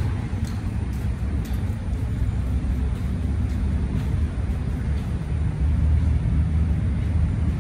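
Steady low outdoor background rumble, with a few faint ticks.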